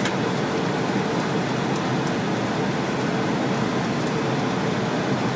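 Steady rushing noise of air on an Airbus A321 flight deck in flight on approach: slipstream and air-conditioning hiss, with a faint steady hum and a few light ticks.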